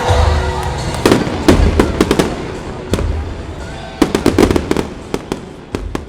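Fireworks bursting in quick crackling volleys of sharp bangs: one cluster about a second in and another about four seconds in, with single bangs in between and a few more near the end.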